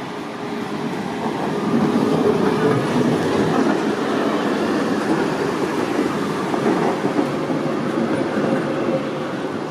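Duewag E2 articulated tram with its bogie trailer running past close by on curved track, its wheels rumbling over the rails. It swells about a second and a half in, holds loud while the cars go by, and eases off near the end.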